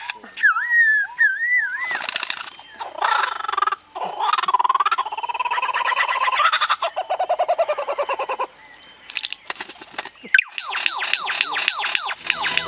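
A string of different bird calls following one another every second or two: looping whistled notes that rise and fall, then harsher, denser calls and rapid sweeping chirps.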